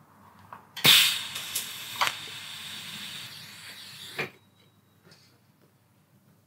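Welding arc tack-welding a stainless steel exhaust tube. It strikes with a sharp crack about a second in, hisses steadily for about three and a half seconds with a couple of clicks, and cuts off sharply.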